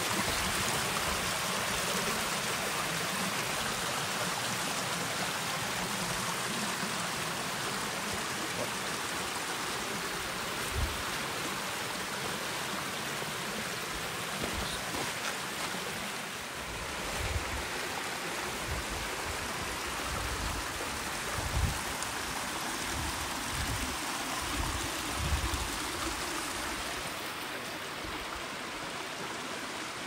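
Mountain stream rushing steadily over rocks, with a few short low thumps here and there.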